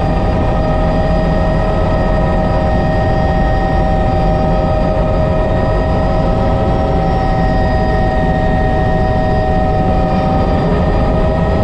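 Bell 206 JetRanger helicopter in flight, heard from inside the cockpit: a steady turbine whine of several high tones over a loud low rumble from the rotor and airframe.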